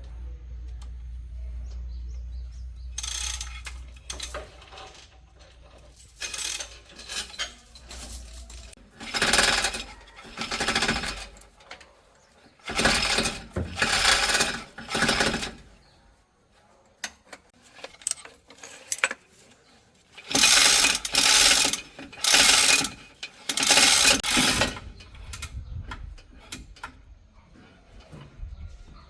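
Pneumatic impact wrench run in repeated bursts of one to two seconds, rattling bolts loose or tight.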